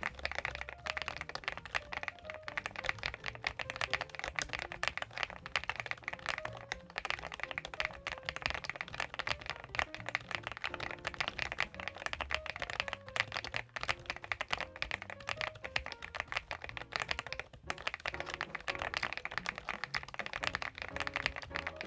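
Continuous fast typing on a CIDOO ABM066 gasket-mounted mechanical keyboard: a dense stream of keystroke clacks.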